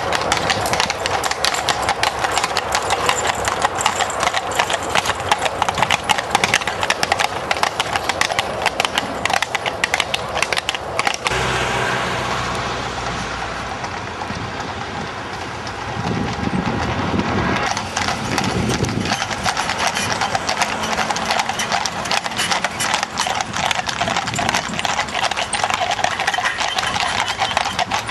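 Shod horses' hooves clip-clopping at a trot on a tarmac road as they pull carriages, a quick, busy run of hoofbeats. For several seconds around the middle the hoofbeats drop back under a smoother, steadier noise, then return.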